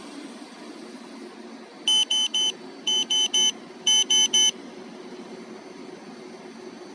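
Two-way car alarm system beeping during remote start: three sets of three short, high electronic beeps, one set about every second, over a steady low hum.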